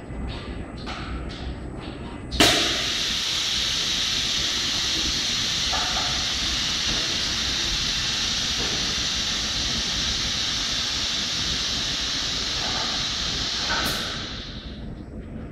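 Loud steady hiss of rushing air from the inline magnetron sputtering line, starting suddenly about two seconds in and fading away near the end. A few faint ticks come before it.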